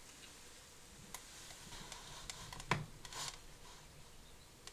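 A quiet pause in a small room: faint room tone with a few small clicks, the clearest a little under three seconds in, followed by a short soft hiss.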